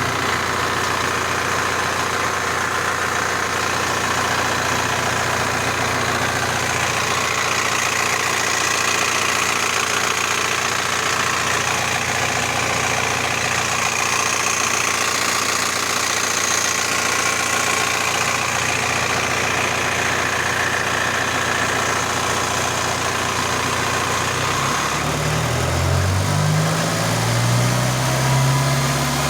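Volkswagen engine coupled to a ZIL truck gearbox, idling steadily with a knock that the owner cannot explain. About 25 s in it is blipped a few times, the pitch rising and falling with each rev.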